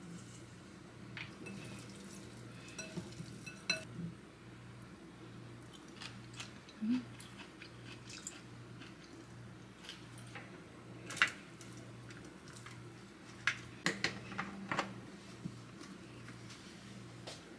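Scattered light clinks and taps of dishes and cutlery, a few at a time, over a low hum that pulses evenly about one and a half times a second.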